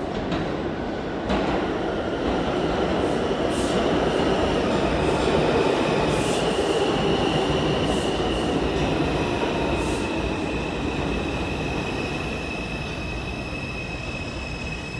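New York City subway train running into the station: a loud rumble of wheels on rail that builds to a peak around the middle and then slowly fades, with a steady high wheel squeal from a few seconds in.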